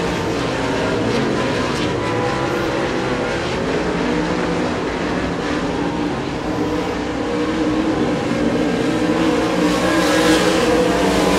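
A field of USRA Modified race cars running laps together, several engines heard at once, their notes overlapping and shifting as cars pass. The sound grows a little louder near the end as the pack comes closer.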